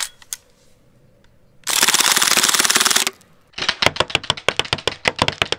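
Crosman A4P CO2-powered BB pistol firing on full auto: a dense burst of just over a second about a second and a half in, then after a short pause a longer, slower string of rapid shots.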